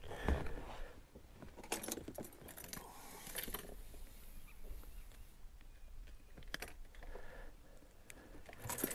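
Metal snap clips of a fish stringer clinking and jingling as they are handled, in scattered short clicks.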